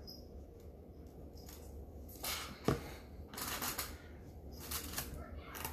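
Quiet rustling and light knocking of small paste jars and packing being handled in the box, with one sharp click a little under three seconds in.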